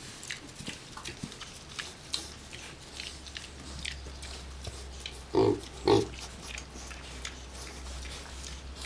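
Piglets grunting twice in quick succession about five and a half seconds in, over soft rustling and small clicks as they move about in wood-shaving bedding, with a low steady hum underneath.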